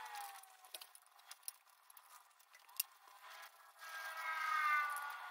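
Faint clicks and light knocks of hand tools and metal fittings being handled while an aircraft engine's throttle linkage is disconnected. Near the end comes a faint pitched squeak or whine, about a second and a half long and slightly falling.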